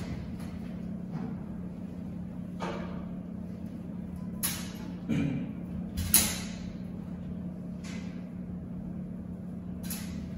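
Cloth wiping a glass display-case top: several short rubbing swishes, the loudest with a light knock about six seconds in, over a steady low hum.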